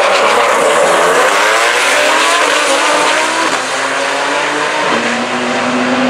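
A twin-turbo Lamborghini Huracán V10 and a Porsche 911 Turbo S twin-turbo flat-six launching together and accelerating hard down a drag strip. The engine notes climb in pitch through the gears, dropping at each upshift.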